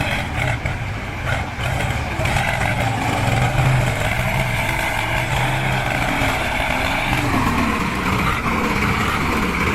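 Engine of a heavy vehicle or construction machine running steadily, with a continuous low hum.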